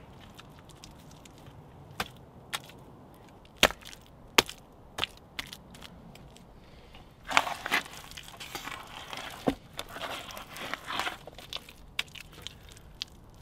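Wet clay-and-straw daub being slapped and pressed by hand onto a wattle wall: several sharp slaps a second or so apart. About seven seconds in come squelching and scraping as a hand digs more daub out of a bucket.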